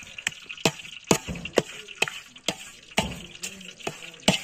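A perforated metal skimmer knocks and scrapes against a metal basin as raw chicken pieces are stirred and turned, about two sharp clinks a second.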